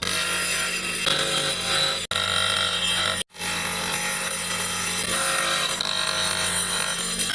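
A power tool grinding or sanding steadily, with a constant motor hum under the rasping. The sound is cut off for a moment twice, about two and three seconds in.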